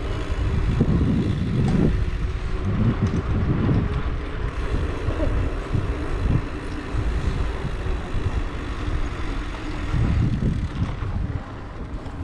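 Low, uneven rumble of wind and road noise while riding a bicycle, swelling and easing throughout.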